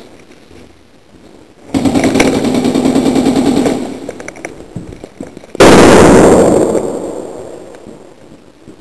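An airsoft gun firing a full-auto burst of about two seconds as a rapid buzzing rattle. A couple of seconds later comes a sudden, very loud bang that dies away over about two seconds.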